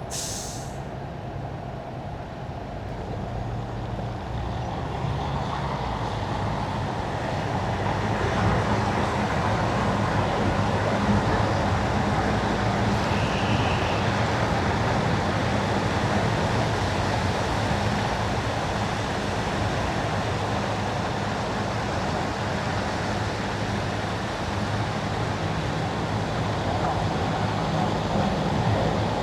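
Car driving on wet asphalt: steady tyre hiss with a low engine hum, growing louder over the first several seconds as the car gets up to speed, then holding steady. A brief sharp hiss at the very start.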